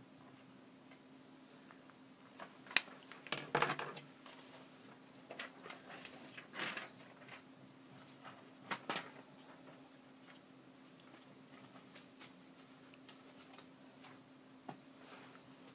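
Clicks, taps and short scrapes of a technical pen and a pen-fitted compass being handled on a drawing board, the loudest a sharp click about three seconds in, followed by a brief scratchy rustle. A faint steady hum runs underneath.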